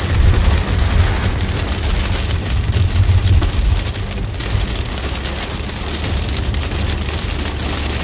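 Heavy rain pelting a moving car's windshield and roof, a dense patter of drops over the low rumble of tyres on the wet road, heard from inside the car.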